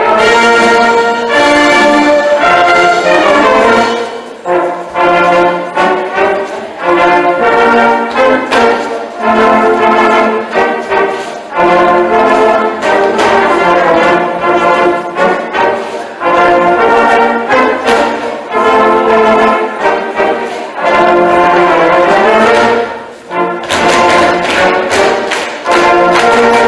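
A Bavarian brass band with trumpets, trombones and tubas playing a folk dance tune for Schuhplattler dancing, striking up at the start and going on in phrases with brief dips between them.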